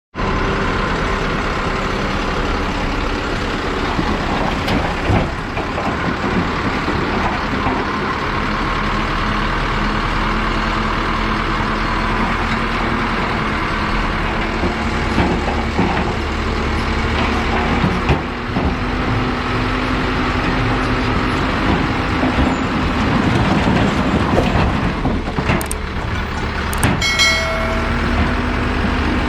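Heavy diesel machinery, a Komatsu PC210LC crawler excavator and dump trucks, running steadily at a worksite, with occasional knocks. Near the end comes a brief high-pitched squeal.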